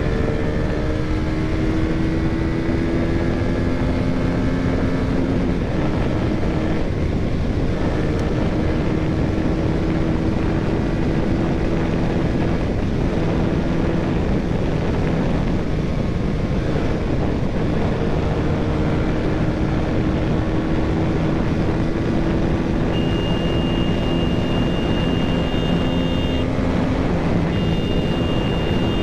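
Single-cylinder KTM motorcycle engine running under way, its pitch climbing slowly and dipping back a few times, over heavy wind rush on the helmet-mounted microphone. A high steady tone joins about 23 seconds in, with a short break.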